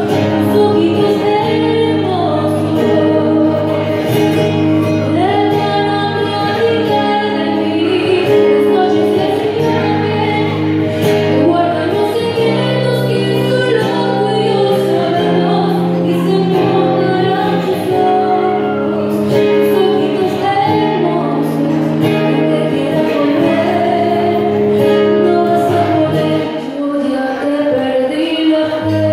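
A woman singing a song live into a microphone over music with long, held low chords, in a large hall. The accompaniment thins out briefly near the end.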